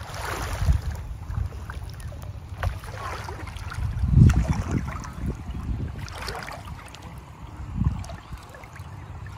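Wind rumbling on the microphone over water lapping and sloshing around a man wading in shallow floodwater with a cast net. Stronger low bursts come about four seconds in and again near the end.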